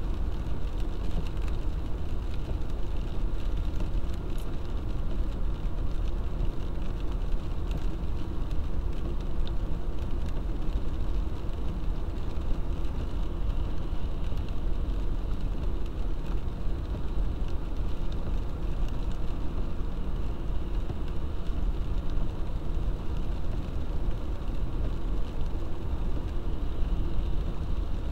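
Car driving on a wet road, heard from inside the cabin: a steady, low rumble of engine and tyre noise.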